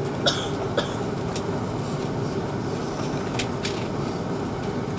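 Steady engine and cabin hum inside an Airbus A330-200 taxiing on its Rolls-Royce Trent 700 engines, with a few short sharp clicks or knocks, the two loudest in the first second.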